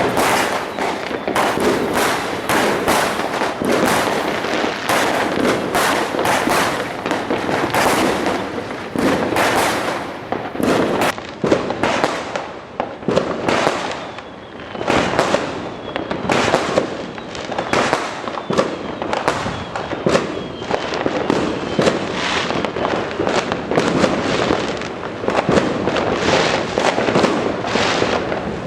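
Fireworks going off in a continuous barrage: many bangs and crackles overlapping with hardly a gap, loud throughout.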